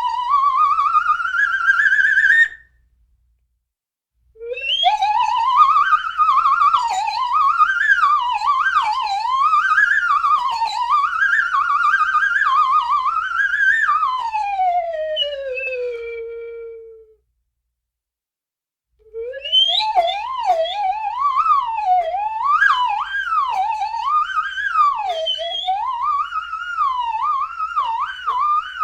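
Slide whistle played in wild pitch slides: a rising slide that cuts off suddenly, a pause of about two seconds, then a run of quick up-and-down slides ending in a long falling slide. After another pause of about two seconds, faster zigzagging up-and-down slides run on.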